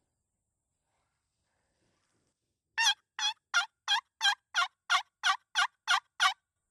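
A turkey call run as a hen yelp series: eleven evenly spaced yelps, about three a second, each dropping in pitch. It is an invitation meant to make a distant tom gobble back.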